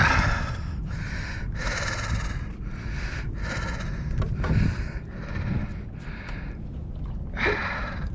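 A man breathing hard and loud, one heavy breath about every second, from the strain of fighting a large softshell turtle on rod and line. A steady low rumble runs underneath.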